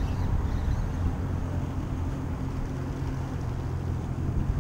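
Jet boat's engine running slowly: a steady low hum over the noise of the water.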